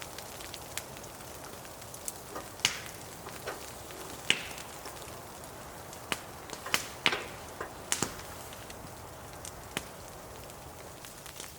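Wood fire crackling in a hot-tent wood stove on its first test burn, with irregular sharp pops over a steady hiss.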